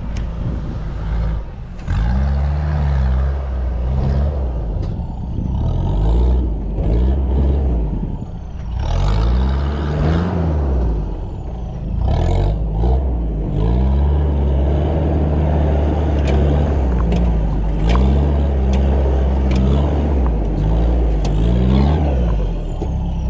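A 4x4 off-road vehicle's engine revving again and again as it works through an off-road course, its pitch rising and falling every few seconds, with scattered sharp knocks.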